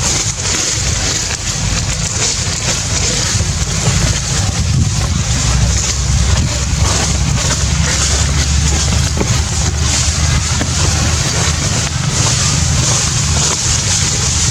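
Wind buffeting the microphone: a continuous loud, rumbling roar with no let-up.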